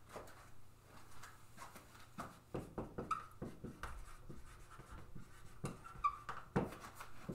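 Dry-erase marker writing on a whiteboard: a run of short strokes with a few brief squeaks as letters are written.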